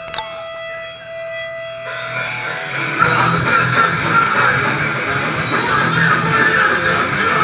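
Live heavy rock band with electric guitars, bass and drum kit playing loud. A held guitar note rings for the first couple of seconds, then the full band comes in, louder from about three seconds in.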